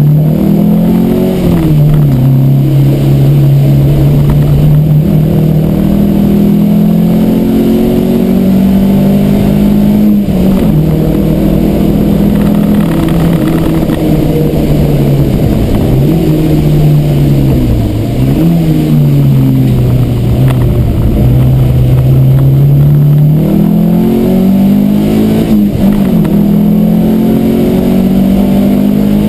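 Peugeot 309 GTI 16's 1.9-litre 16-valve four-cylinder engine heard from inside the cabin, driven hard. The engine note rises and falls with the revs: it climbs at first, drops sharply about a second and a half in, holds steady, dips twice around the middle, then climbs again near the end.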